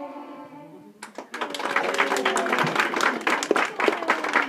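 A group of young children's singing trails off in the first second, then applause from many hands breaks out and keeps going, with a few voices calling over the clapping.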